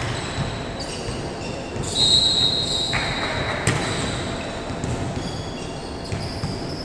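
Indoor volleyball play in an echoing gym hall. A ball is struck with one sharp smack about three and a half seconds in, shortly after a high steady tone lasting about a second, with scattered short shoe squeaks on the court floor.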